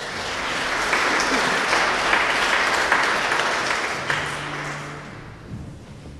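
Audience applauding, building up quickly and then dying away after about five seconds.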